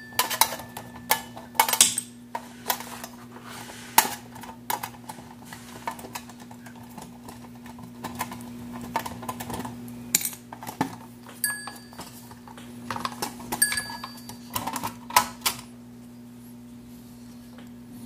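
Irregular metallic clicks, clinks and knocks as the knobs on the back plate of an antique mechanical alarm clock are unscrewed and its brass movement is worked loose from the wooden case. A couple of short ringing tones, about 11 and 14 seconds in, come from the clock's bells being touched.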